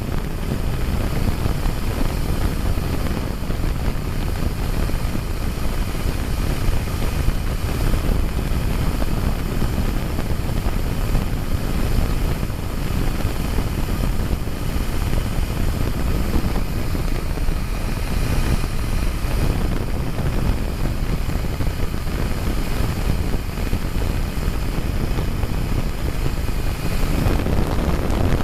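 BMW 320d turbocharged four-cylinder diesel engine running steadily, with a faint high whine over the engine noise; the owner says the engine has bad turbo seals.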